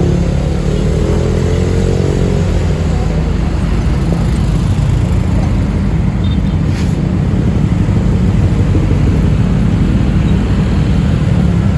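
Motor vehicle engine running close by with a steady low rumble, mixed with road noise.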